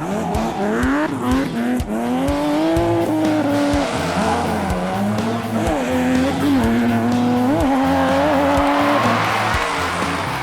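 Background music with a steady beat, over which a single pitched tone keeps rising and falling like an engine revving.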